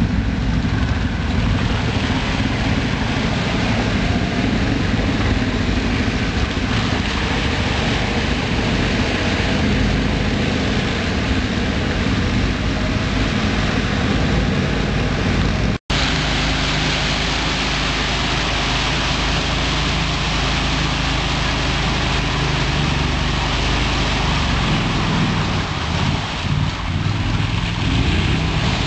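Engines of amphibious 6x6 ATVs running steadily and loudly, with a momentary dropout about halfway where one clip cuts to the next.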